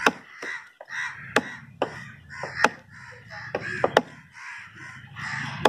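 A large knife chopping red snapper on a wooden tree-stump block: about eight sharp knocks at uneven intervals as the blade cuts through the fish into the wood. Crows caw between the strikes.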